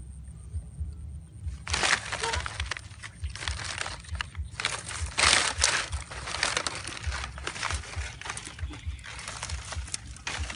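Rustling and crunching of dry leaf litter and loose soil being dug and pushed around at the mouth of a burrow, starting about two seconds in and going on irregularly, over a low rumble.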